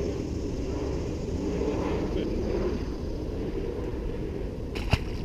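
Steady low rumble of wind on a hat-mounted camera's microphone, with a short sharp splash about five seconds in as a largemouth bass is let go into the water.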